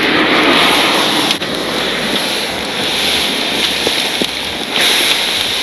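Beer-and-salt-brined beef steaks sizzling loudly on a wire grill over hot charcoal as they are laid on, the wet meat hissing against the heat.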